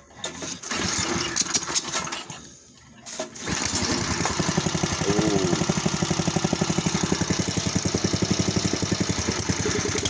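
Rear-tine tiller's small single-cylinder engine being started: it cranks and sputters unevenly for a couple of seconds, then about three and a half seconds in it catches and runs with a steady, even beat. It starts now that it has fuel; lack of gas was all that kept it from starting.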